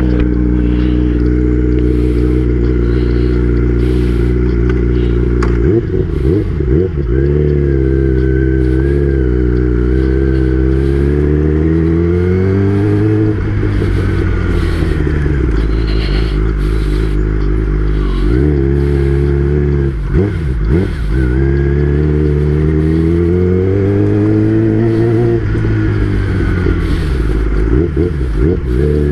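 Kawasaki ZX-10R's inline-four engine under way: it holds a steady pitch, then twice climbs as the bike accelerates and drops as it slows, with short breaks in between.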